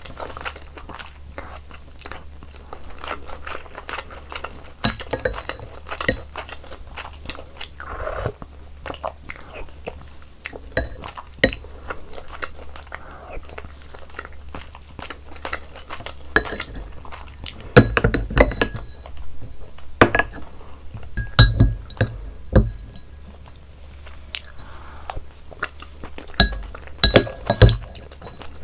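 Close-miked eating sounds: steady chewing and biting of beef seaweed soup with rice. Now and then there are sharp clicks and short ringing clinks of a utensil against the bowl, louder about two-thirds of the way in and again near the end.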